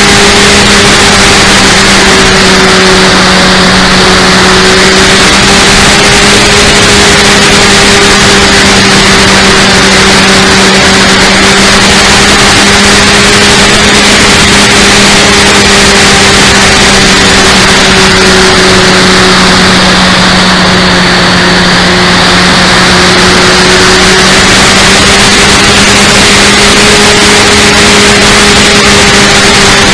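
Electric 1160kv motor and propeller of an RC P-51D Mustang model, heard close up from an onboard camera, droning at a nearly steady pitch that wavers slightly with throttle, over a constant loud rush of air noise.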